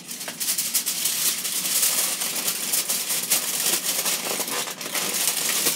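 Aluminium foil crinkling and crackling as it is folded and pressed around a cooked pork tenderloin.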